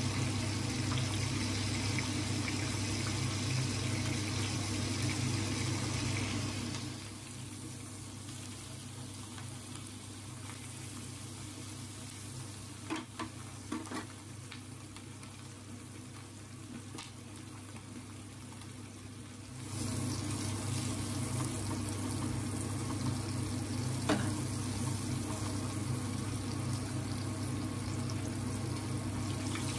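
Small whole masala-coated fish shallow-frying in oil in a pan, a steady sizzle over a low hum. The sizzle drops for a stretch in the middle, with a few short clicks of a metal spatula against the pan.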